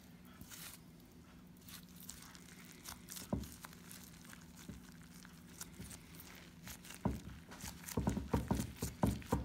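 A nori sushi roll being rolled and squeezed by hand inside a cloth tea towel on a wooden board: soft rustling of the cloth, one thump about a third of the way in, and a quick run of soft thumps near the end as the roll is pressed into shape.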